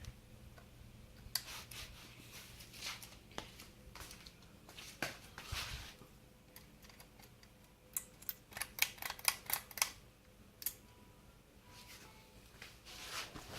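Ceiling fan running with a faint, steady low hum, under a scatter of sharp clicks and knocks, including a quick run of clicks about eight to ten seconds in.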